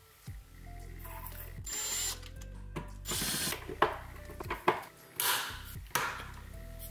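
Screws being driven into an IKEA SEKTION cabinet frame with a screwdriver to mount UTRUSTA push-opener plates: several short grinding bursts of about half a second each, with two sharp clicks, over steady background music.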